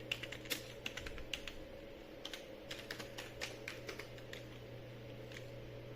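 Typing on a computer keyboard: a run of quick, irregular key clicks that stops near the end, over a steady low hum.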